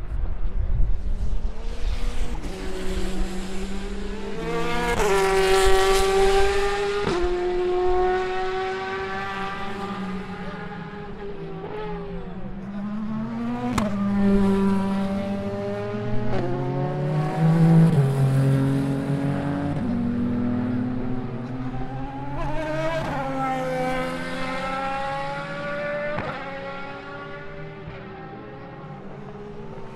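Several endurance race cars pass one after another, their engines revving. The pitch steps up and down at gear changes as each car approaches and drives away, and the loudest passes come about five seconds in and again near the middle.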